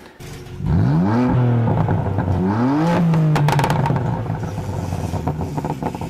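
A car engine revving up twice, its pitch climbing quickly each time, then holding at a steady higher note and fading out near the end.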